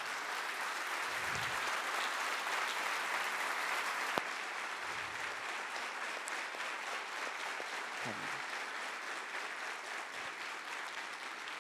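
A large seated audience applauding, dense steady clapping that eases off slightly in the second half, with one sharp click about four seconds in.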